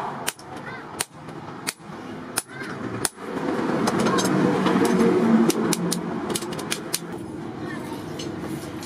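Hammer blows on a hot-cut chisel cutting through a red-hot steel disc brake rotor on an anvil: five sharp metallic strikes about 0.7 s apart. A few seconds of louder, steady mixed noise follow, with faint clinks near the end.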